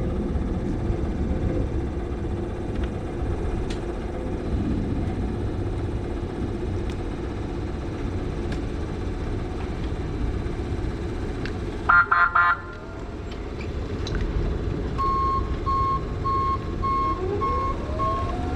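Cat Mitsubishi FBC18N electric forklift being driven: a steady low rumble, then about twelve seconds in the horn sounds in a few quick honks, the loudest sound here. From about fifteen seconds the reversing alarm beeps steadily as it backs up, and near the end the drive motor's whine rises as it speeds up.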